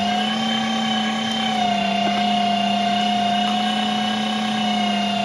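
LEM Mighty Bite electric meat grinder running under load, grinding seasoned deer meat: a steady motor hum with a high whine over it, its pitch dipping slightly about a second and a half in.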